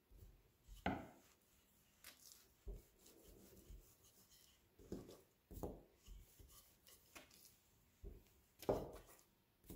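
Wooden rolling pin rolling out malawah dough on a floured table: faint, irregular knocks and rubbing strokes, a dozen or so, with slightly louder knocks about a second in and near the end.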